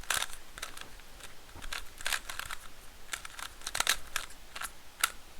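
GAN i Carry smart speed cube being turned by hand, its plastic layers clicking and clacking in quick, irregular turns as a scramble is applied.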